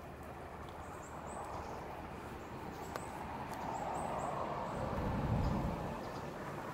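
Wild birds chirping in short, high calls, repeated every second or so. Beneath them a low rumble swells, loudest about five seconds in.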